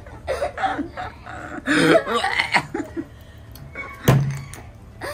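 Young girls laughing, loudest about two seconds in, then a single sharp thump about four seconds in.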